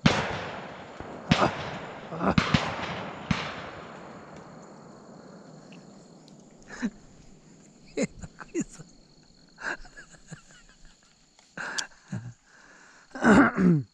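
Shotgun shots fired at a dove in flight: one loud close shot echoing away, followed by several more shots within about three seconds.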